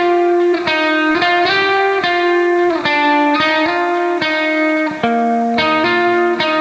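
Background music: a guitar playing a melody of ringing single notes that change about every half second.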